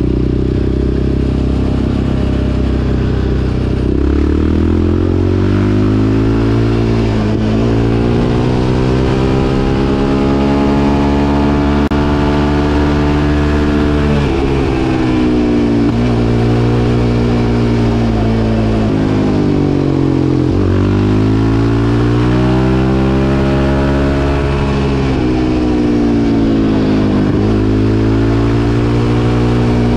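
Yamaha Raptor 700 quad's single-cylinder four-stroke engine pulling under acceleration through the gears. The pitch climbs steadily and drops at each gear change, about a third of the way in, about two-thirds in and near the end. It is ridden to test whether the recently replaced clutch slips.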